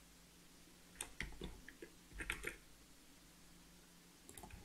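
Faint clicks of a computer keyboard and mouse as Blender shortcuts are pressed, in a few short clusters about a second in, about two seconds in, and near the end.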